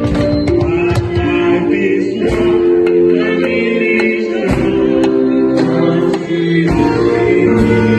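Gospel music: several voices singing together over instruments, with regular drum strokes.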